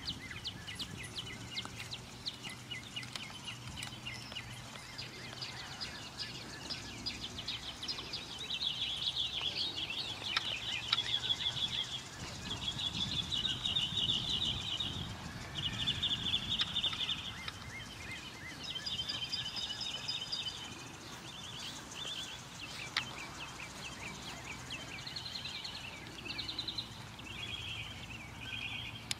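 Outdoor ambience of birds singing: high, rapid trills that last a second or two each, repeating one after another through the middle and again near the end.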